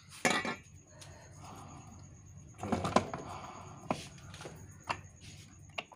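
Metal hand tools (wrenches and sockets) clinking and clattering as they are handled and set down after the scooter's CVT clutch nut is tightened. A loud clatter comes near the start, then a quieter cluster of clicks midway and single light knocks about once a second.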